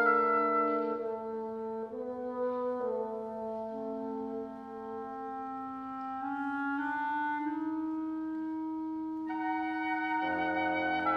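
Wind quintet of flute, oboe, clarinet, French horn and bassoon playing slow, sustained chords that shift every second or so. The sound grows fuller about nine seconds in, and low notes enter near the end.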